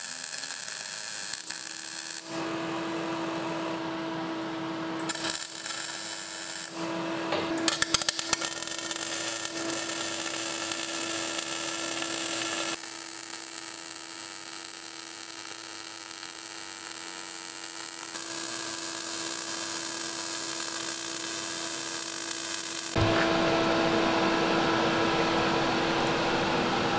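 Arc welding on the steel tubes of a car's front bash bar: several stretches of welding, each changing suddenly into the next, with a burst of sharp clicks about eight seconds in.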